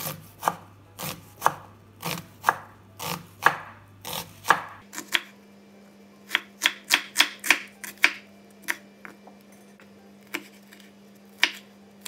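A sharp Stein Cookware kitchen knife slicing an onion on a wooden cutting board: even knocks of the blade on the board about twice a second, then a quicker, uneven run of cuts that thins out to a few single chops near the end.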